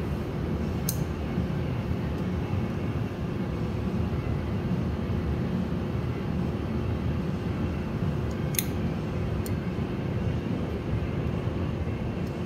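Steady low roar of a glassblowing hot shop: gas-fired furnace and glory-hole burners with exhaust fans. A few sharp ticks sound over it, about a second in and twice near the end.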